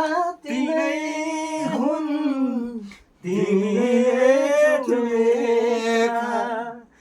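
A voice singing a Nepali song without instruments, in two long lines with held, wavering notes and a short break for breath between them.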